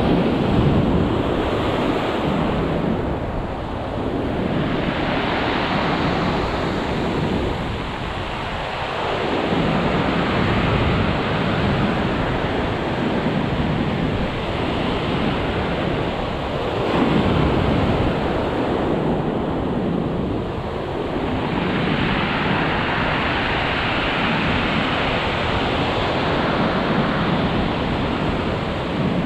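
Ocean surf breaking and washing up a gravel beach, a steady roar of rushing water that swells and eases every few seconds as each wave comes in.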